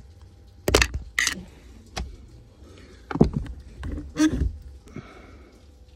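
Irregular metallic clicks and knocks, about five sharp ones spaced a second or so apart, as a tool pries at the gear-shift cable ends on a Daewoo Matiz's gearbox shift linkage.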